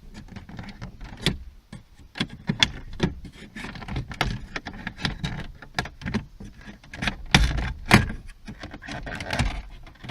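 Plastic dashboard trim clips on a 2006 Toyota Avensis popping loose as the trim panel is levered out along its length with a plastic trim tool: a string of irregular sharp snaps and clicks, loudest a little past the middle.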